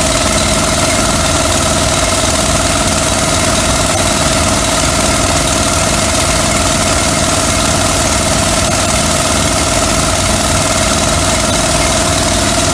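Van-mounted hot-water pressure-washer rig running steadily: small Honda petrol engine drone with a constant whine, unchanged in pitch and level throughout.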